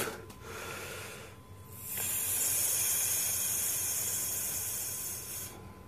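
A person breathing close to a phone's microphone: a soft hissing breath in, then about two seconds in a longer, louder hissing breath out lasting some three seconds.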